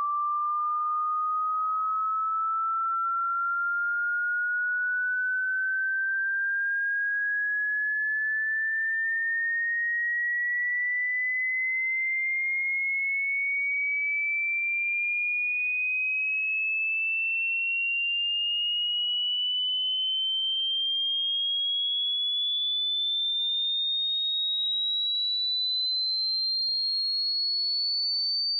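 A single pure electronic test tone gliding slowly and evenly upward in pitch, from a mid-pitched whistle to a high one: a hearing-test frequency sweep that climbs toward the edge of hearing.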